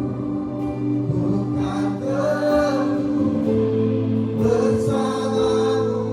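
Group of voices singing a slow gospel worship song over long held accompaniment chords, the sung notes drawn out with vibrato.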